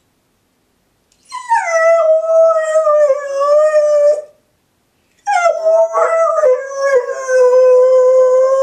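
Labradoodle howling: two long howls about a second apart, each starting high and sliding down to a lower held note, the second given with a ball in its mouth. A dog left alone in the house howling because it misses its owners.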